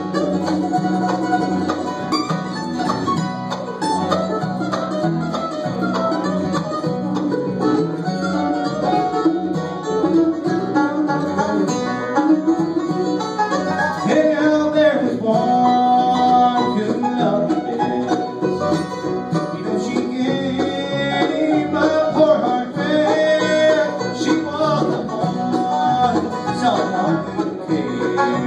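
Live bluegrass band playing: banjo, mandolin and acoustic guitar picking together. A man's voice singing lead comes in about halfway through.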